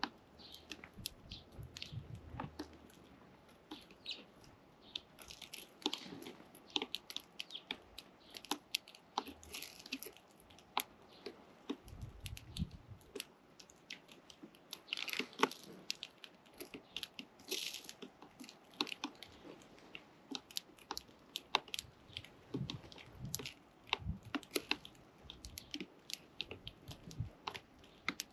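Sparrow chicks pecking at food, an irregular stream of small taps and cracks, with a few brief rustling flurries.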